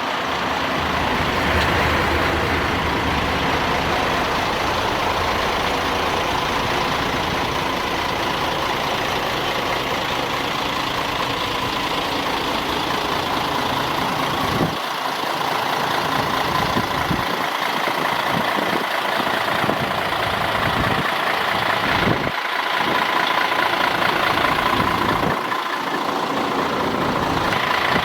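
Diesel engine of a Mercedes-Benz Axor 3340 concrete-pump truck running steadily, with a steady whine running above the engine note.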